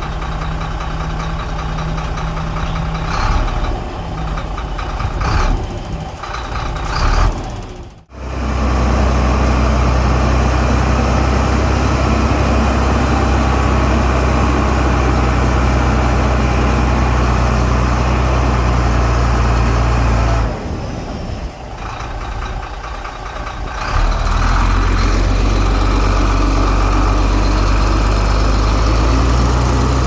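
Heavy diesel engines of earthmoving machinery running steadily under load. The sound changes abruptly about eight seconds in, drops back for a few seconds after twenty, and returns at full strength around twenty-four seconds.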